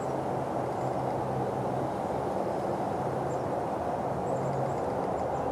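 A steady, even noise with a low droning hum beneath it, and a few faint, short high chirps from small birds.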